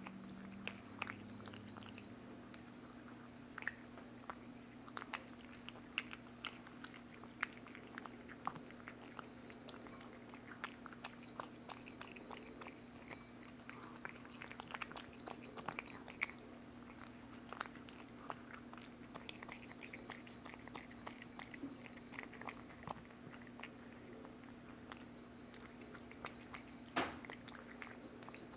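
A cat eating wet food from a bowl, close up: an irregular run of wet smacking, licking and chewing clicks, with one louder smack near the end. A faint steady low hum runs underneath.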